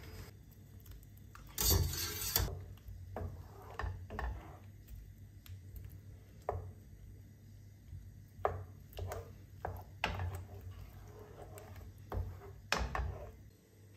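Gnocchi going into tomato sauce in a frying pan with a short burst of noise about two seconds in. After that a wooden spoon stirs them, knocking and scraping against the pan in a string of separate short knocks.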